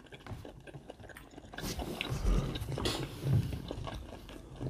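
Close-miked eating sounds: chewing and soft clicks and scrapes as a spoon digs into a whole cooked red snapper. The sounds grow louder from about two seconds in to about three and a half seconds in.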